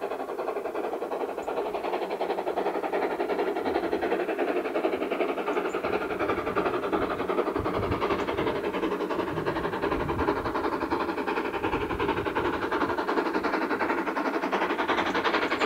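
A steam-hauled train running, a continuous dense rumble and rattle that grows slowly louder.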